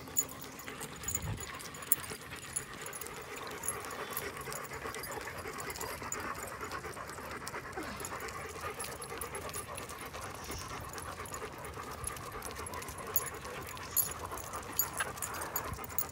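A dog panting steadily while walking, with scattered light clicks throughout.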